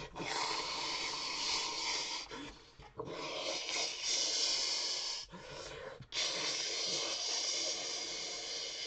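A volcano eruption imitated with the human voice: a series of long, breathy, hissing blasts broken by short pauses.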